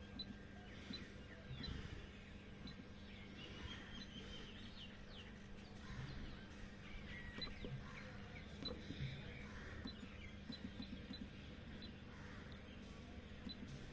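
Soft clicks of a generator controller's keypad buttons being pressed now and then, over a faint low steady hum and faint high chirping in the background.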